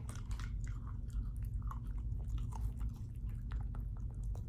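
A young dachshund chewing and crunching a dog treat: a run of small, irregular crunches and clicks.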